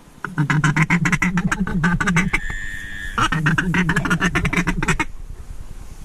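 Mallard-style quacking in two rapid strings of about two seconds each, with a short pause holding a brief steady tone between them.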